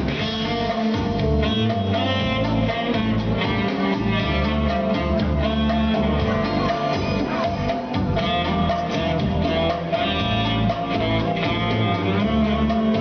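Instrumental music with guitar over a bass line and no singing: the instrumental break of a song.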